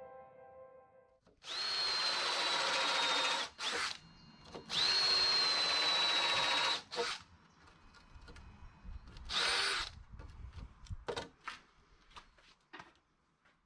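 Electric drill running in two bursts of about two seconds each with a steady high whine, then a shorter burst with a rising whine, followed by a few short clicks and knocks.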